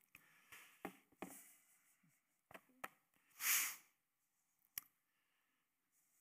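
Scattered light taps and clicks of fingers handling a frozen laptop at a lectern, picked up by a headset microphone, with one louder breath through the nose about three and a half seconds in.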